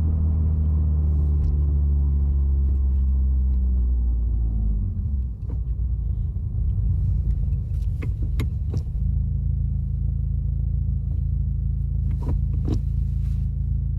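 Turbocharged car engine heard from inside the moving car, its pitch easing down over the first few seconds as the car slows, then running steadily under road rumble. A few sharp clicks come in the middle and near the end.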